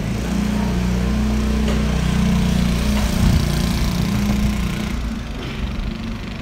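A motor vehicle's engine running close by, building to its loudest about three seconds in and easing off after about five seconds.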